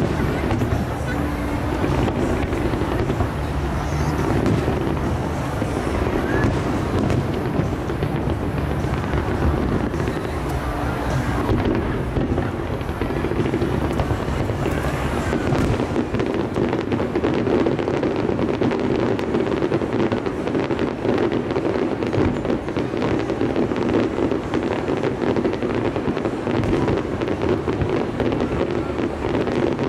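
Aerial fireworks bursting and crackling, with music playing alongside. The crackling grows denser about halfway through.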